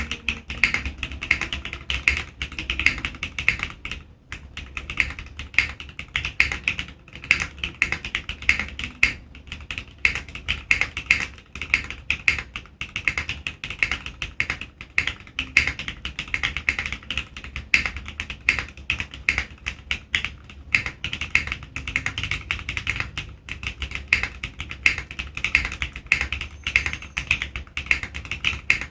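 Continuous fast typing on a custom HHKB-layout mechanical keyboard with an aluminium plate, a dense, unbroken run of keystroke clacks.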